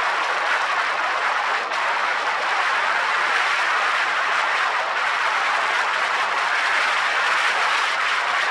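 Severe wind noise from air rushing over a Nikon KeyMission 360's microphone at road speed: a steady, dense rushing hiss that covers everything else.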